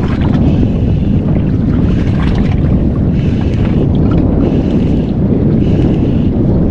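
Wind buffeting the microphone on a boat at sea: a loud, steady low rumble, with a brighter hiss that swells and fades about once a second.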